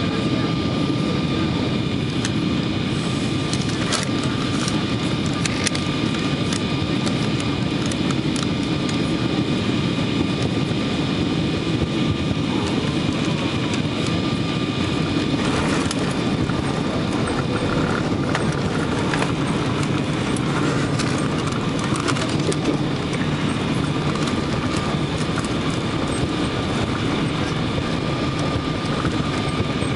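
Steady cabin roar inside a Boeing 777-200 airliner on final approach, touchdown and landing roll, with a faint steady whine. Brief knocks and rattles come about halfway through, around touchdown.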